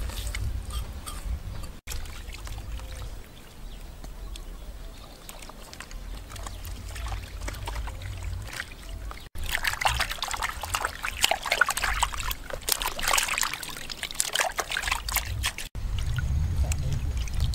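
Water splashing and trickling in a plastic basin as hands wash a freshly skinned snake and its innards, loudest and busiest over a stretch in the second half. A low rumble underlies the quieter first half and the end.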